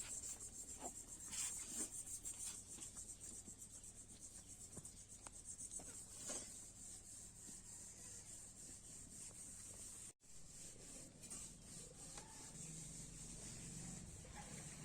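Faint, steady, high-pitched insect trilling, typical of crickets, under soft scattered rubbing and clicking sounds.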